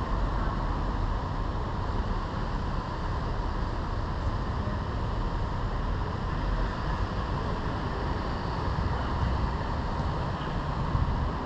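Steady outdoor background noise, a low rumble with hiss above it, with no distinct events.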